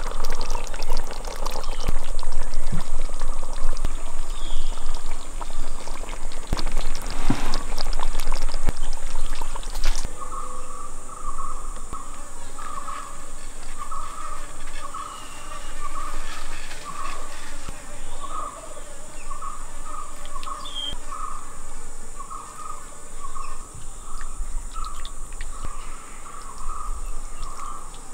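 Fish curry bubbling and simmering in a pot, a dense crackle of bubbles. About ten seconds in it cuts off sharply to outdoor ambience: a steady high insect drone with a short chirp repeating about once a second.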